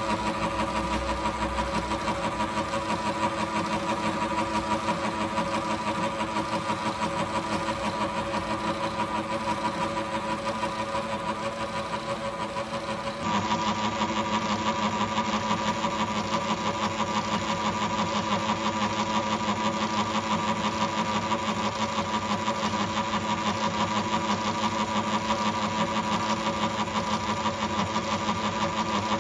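Atlas milling machine running steadily, a machine whir with a fine, even rhythmic pulse. It gets abruptly louder about halfway through.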